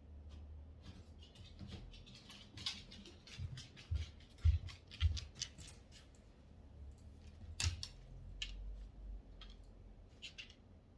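Dogs' claws clicking and scratching on an indoor floor in irregular light ticks, with a few soft low thumps about halfway through.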